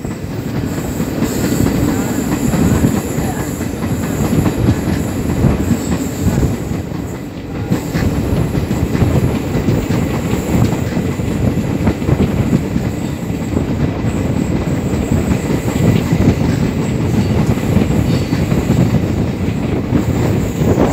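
Passenger train coaches running round a curve, heard from an open coach doorway: a steady loud rumble and clatter of wheels on the rails, with a faint high squeal of the wheels on the curve.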